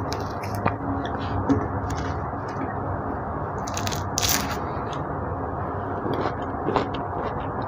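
Hands peeling a sweet orange, the rind tearing and scraping off in short rips, the loudest about four seconds in, over a steady background hiss.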